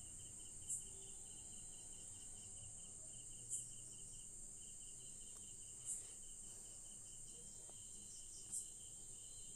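Crickets trilling steadily in a fast pulsing rhythm. Four short bursts of sizzling, about every two and a half seconds, as balls of pakora batter are dropped one by one into hot oil.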